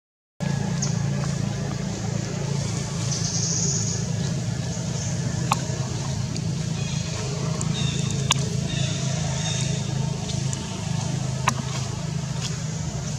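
A steady low engine-like hum, with a few sharp clicks about three seconds apart.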